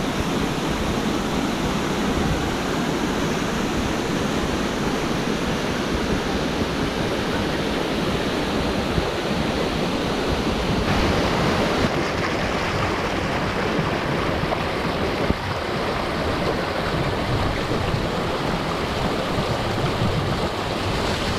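Waterfall pouring steadily into its pool: a dense, constant rush of falling water. About halfway through, the sound turns slightly duller.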